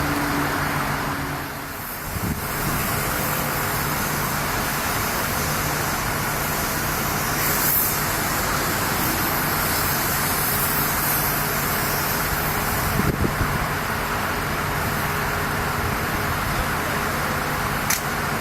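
A steady engine drone with a low, even hum, dipping briefly about two seconds in, with a single sharp click near the end.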